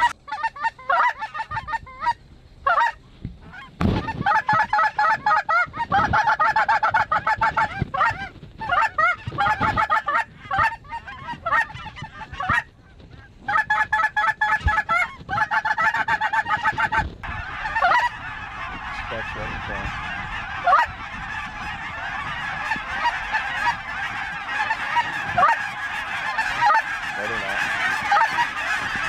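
Snow geese honking: loud, rapid calls in bursts with short gaps, then from about 17 seconds in an unbroken clamour of a large flock calling together.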